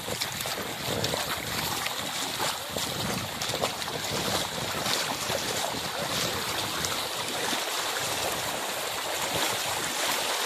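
Steady rushing of wind and flowing floodwater, with splashing from feet wading through shallow muddy water.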